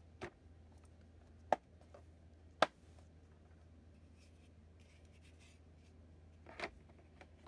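Hard plastic toy playset pieces being handled: three sharp clicks in the first three seconds, faint scraping, then a louder clatter near the end as a flat plastic extension base piece is lifted and moved, over a steady low hum.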